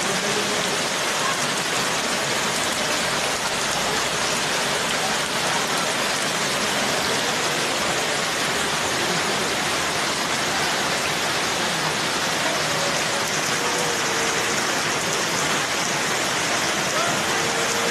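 Steady rainfall: an even, continuous hiss of rain pouring onto wet, puddled ground.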